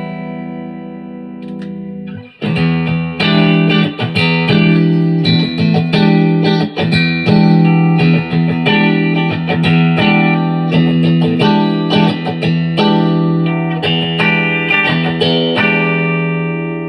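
Squier Classic Vibe '50s Stratocaster electric guitar being played. A held chord rings and fades, then about two seconds in a run of picked notes and chords begins and carries on until it fades out near the end.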